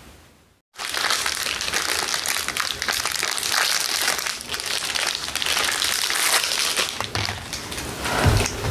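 Plastic wrapper crinkling and rustling as it is handled and opened, starting about a second in.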